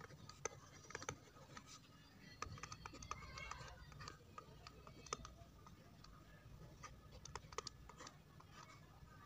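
Faint, irregular taps and scratches of a stylus writing on a tablet, over a steady low hum.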